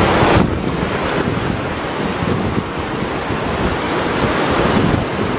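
Fast, muddy floodwater of a wadi in spate rushing past, a steady roar of water, with wind buffeting the microphone.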